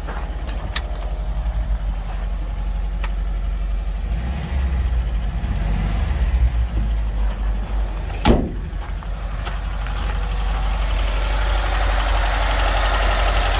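VW T25 van's water-cooled flat-four engine idling steadily while it warms up, with a single thump about eight seconds in. The engine grows louder near the end.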